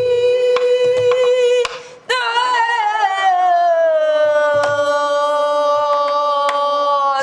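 A woman sings wordless Korean guum vocables in long held notes to gutgeori rhythm: first a steady note of nearly two seconds, then, after a brief break, a long note that starts higher with vibrato and slides down before holding for about five seconds. Sparse strokes on a buk barrel drum sound under the voice.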